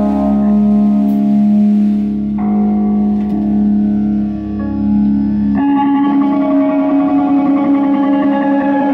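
Live rock band's electric bass and guitar holding sustained, distorted chords with heavy reverb and echo and no drums; the held chord changes about two and a half seconds in and again about five and a half seconds in.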